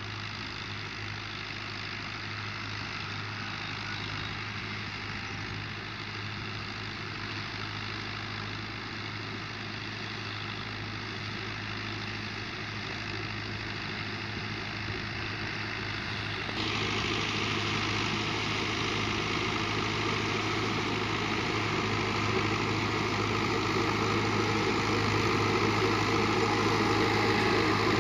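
Fiat 640 tractor's four-cylinder diesel engine running steadily as it pulls a rotavator through sandy ground, growing gradually louder as the tractor comes nearer. A little over halfway through the sound jumps suddenly louder and brighter.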